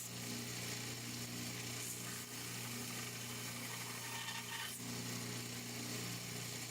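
Belt sander with a 180-grit belt running, a steady motor hum under a hiss as the back of a pocket knife is sanded against the belt.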